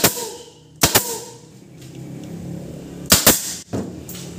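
Pneumatic staple gun firing staples through upholstery into a wooden seat box: four sharp shots, one right at the start, one a second later, and a quick pair a little after three seconds.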